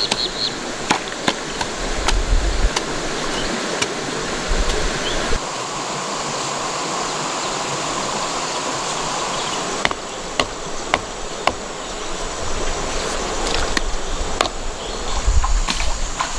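Steady rush of a shallow rocky stream with a high insect buzz. Scattered sharp knocks and taps cut through it, the first few as a wooden stake is pounded into the ground.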